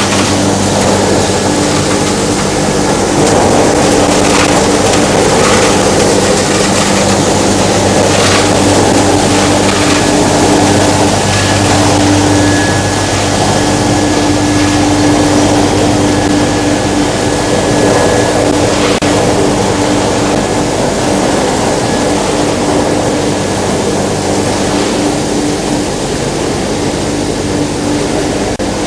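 Plastic film washing line running: a steady motor hum under a loud, constant rush of churning water.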